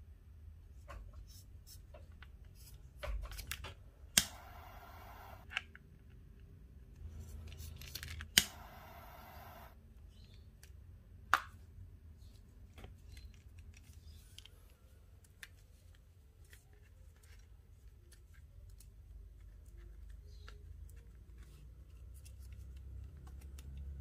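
Scissors snipping paracord ends, then a lighter clicked twice, each click followed by about a second and a half of steady gas hiss as the cut ends are melted, with a further sharp click a few seconds later and soft rustling of cord being handled.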